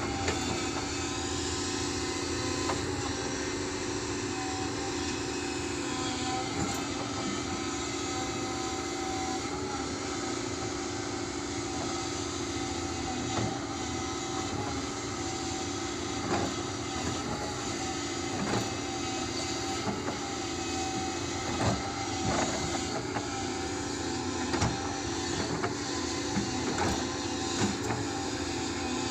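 Steady mechanical running noise with a constant hum, and scattered short knocks and clicks that come more often in the second half.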